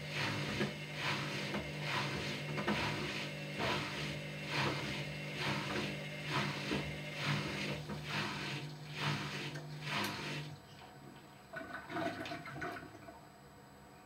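Washer-dryer drum tumbling laundry, a swish about twice a second over a steady motor hum. About ten and a half seconds in the drum stops and only a faint hum is left.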